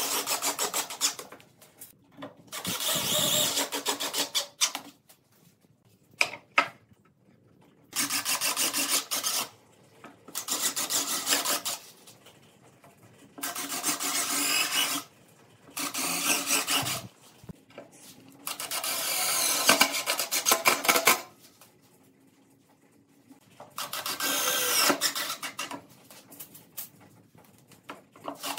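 Cordless impact driver running in about nine bursts of one to three seconds each, with short pauses between, driving screws into pine boards.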